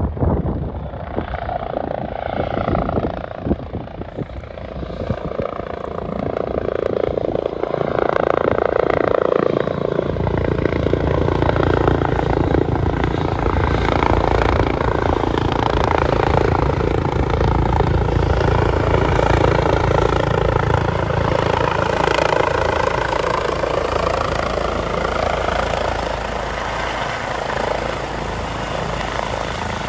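EC135 twin-engine helicopter close by, its rotor and turbine noise growing louder over the first several seconds as it comes in to land. From about ten seconds in it holds steady and loud, with a strong low rotor hum, easing off a little near the end.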